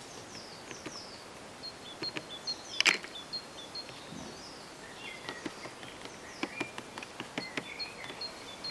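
High, quick chirps and short pips repeating in the background, over a faint hiss, with a few light taps and clicks scattered through, the sharpest about three seconds in.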